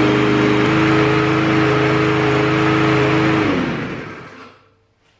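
Craftsman M130 lawn mower's 159 cc OHV engine running steadily at its self-governed speed just after its first pull-start. About three and a half seconds in it cuts out and winds down to a stop, falling in pitch.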